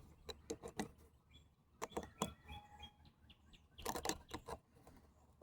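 Three clusters of sharp clicks and knocks from hand work on a tool and its power cord, with a few short bird chirps between them.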